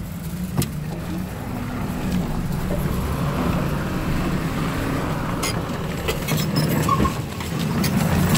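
Doosan DX225 crawler excavator's diesel engine running with shifting pitch, over scattered sharp cracks and knocks of the building being torn down, busiest in the second half.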